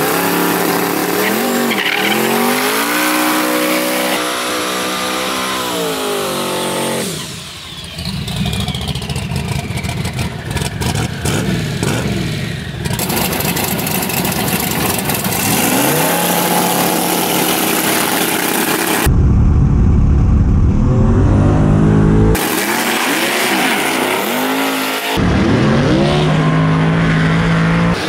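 Twin-turbo small-block Chevy V8 in a drag-racing pickup, revved again and again in quick rises and falls, with a stretch of rough, noisy running in the first half and its loudest, heaviest stretch about two-thirds through. The sound jumps abruptly several times where the shots change.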